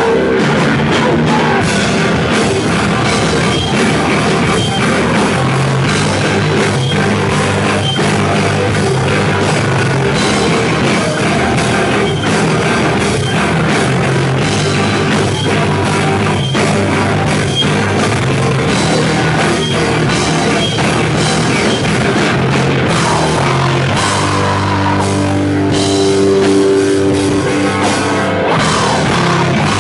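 Loud Japanese hardcore band music: distorted electric guitars, bass guitar and a drum kit playing fast and dense, settling into longer held chords near the end.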